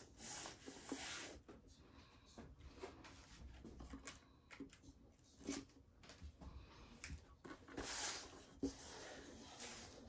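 Blue painter's tape being pulled off the roll and pressed and rubbed down along the back of a wooden canvas frame: a few short tearing, rubbing bursts with light handling knocks between them.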